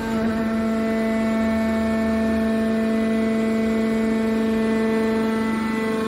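Hydraulic power unit of a metal baler, electric motor driving the hydraulic pump, running with a steady pitched hum.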